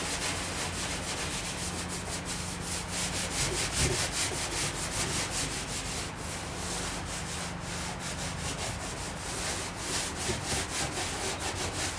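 Sandpaper scrubbing over the painted steel tailgate of a 1959 Volkswagen Type 2 single cab in quick back-and-forth strokes, about four or five a second, taking off the paint that covers the old lettering.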